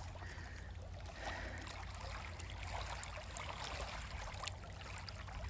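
Faint outdoor background noise: a steady low rumble of wind on the phone's microphone under a soft hiss, with a few faint ticks.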